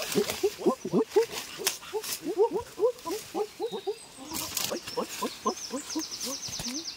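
Many overlapping short animal calls, several a second, each rising and falling in pitch, with a fast high trill joining in after about four and a half seconds.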